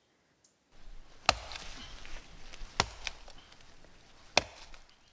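An axe chopping into the base of a dead, hollow balsam fir. Three sharp strikes come about a second and a half apart.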